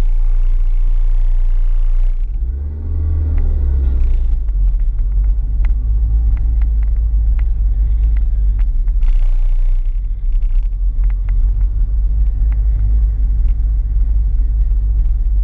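MINI Cooper S convertible's supercharged four-cylinder engine running at the start line, then revving up as the car launches hard about two seconds in. After that, a heavy low rumble of engine and wind as it runs at speed down the strip.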